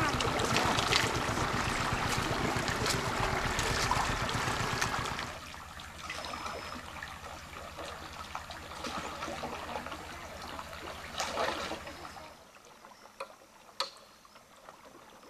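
River water trickling and splashing over a low, even throb; the sound drops sharply about five seconds in, the throb stops near the end, and a few sharp clicks follow.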